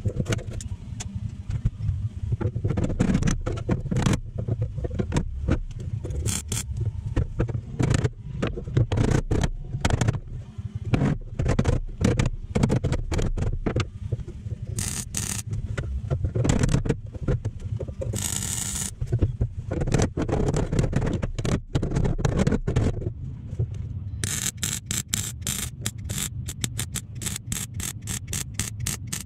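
Workshop hand-work noises: irregular knocks, clatter and scrapes over a steady low hum, with a short hissing burst about two-thirds of the way through and a fast, even run of clicks near the end.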